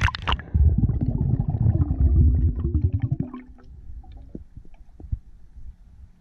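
Water splashing and rushing over the camera as a spearfisher goes under, a loud low bubbling rumble full of clicks for about three seconds, then dying down to faint scattered underwater ticks.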